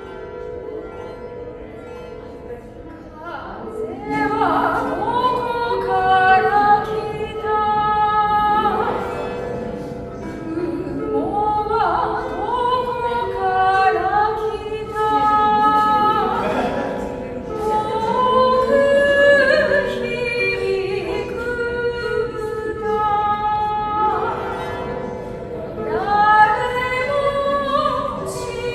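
A lyre with long ringing notes, and a voice singing slow, drawn-out phrases over it.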